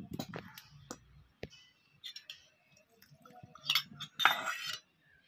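Wire whisk clicking and scraping against a stainless steel bowl as dry biscuit crumbs and powdered sugar are stirred, in scattered short strokes. About four seconds in comes a louder rush, as milk is poured from a cup into the bowl.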